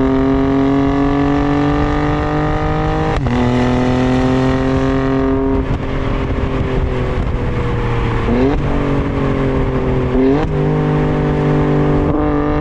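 Alfa Romeo Stelvio Quadrifoglio's 2.9-litre twin-turbo V6 exhaust note under hard acceleration: revs climb, then drop sharply at an upshift about three seconds in. The revs sag off-throttle, then rise in two quick blips about eight and ten seconds in, like downshifts, and hold steady near the end.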